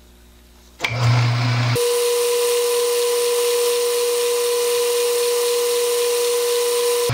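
Metal lathe switched on about a second in, with a brief low hum as the chuck spins up, then running steadily with a steady whine over a hiss.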